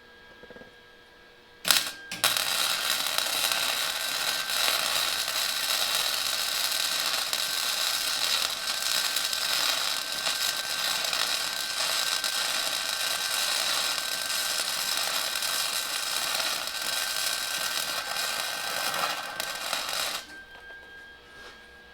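Wire-feed (MIG) welder laying a continuous weld bead: a steady crackling sizzle of the arc lasting about eighteen seconds, after a short strike about two seconds in, then cutting off abruptly.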